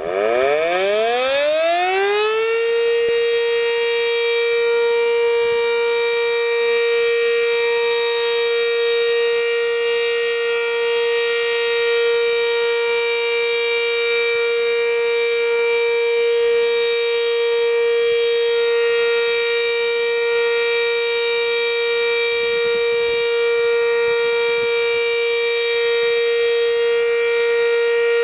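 Sentry 7V8 outdoor warning siren starting up, its pitch rising over about two and a half seconds, then holding a steady tone for its weekly test.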